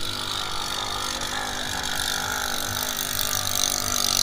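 Racing boat engine running steadily at a distance, growing a little louder near the end, under the noise of a crowd at the water's edge.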